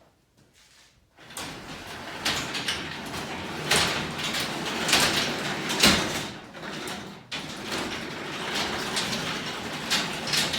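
Sectional garage door being run by hand on worn steel rollers: a continuous rattling, grinding noise from the rollers in the tracks, with several loud clanks. It starts about a second in and drops out sharply for a moment about seven seconds in. The noise is the sign of badly worn steel rollers.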